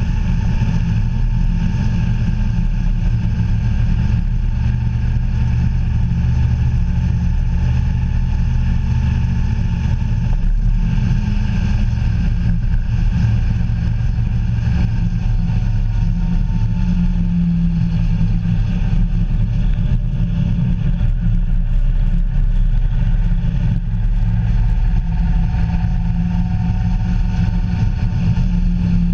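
Engine of the vehicle carrying the camera running at a steady cruise, with a constant rush of road and wind noise. Its pitch shifts a little about 17 seconds in and again near the end.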